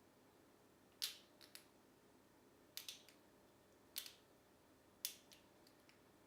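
Master Lock padlock being picked with a tension wrench and hook pick: four sharp metallic clicks about a second apart, some followed by a fainter click, as the pick lifts the pin tumblers and they bind and set.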